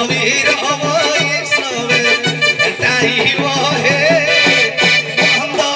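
Live traditional folk music: a wavering melody over a repeating low note pattern, with light percussion strokes.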